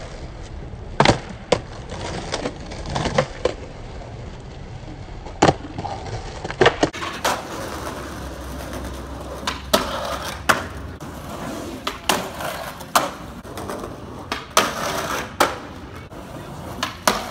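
Skateboards rolling over concrete and granite paving with a steady wheel rumble, broken by a dozen or so sharp wooden clacks of decks popping, landing and slapping the ground.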